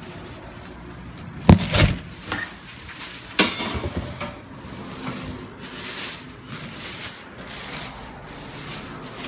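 Clear plastic wrapping rustling and crinkling as it is handled, with two loud knocks about one and a half seconds in.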